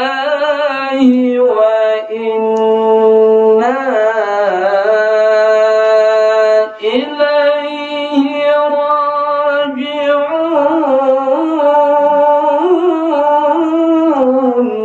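A male qari's melodic Quran recitation (tilawah) through a handheld microphone, with long ornamented notes held for several seconds. There are short breaths about two and seven seconds in, and the voice stops at the very end.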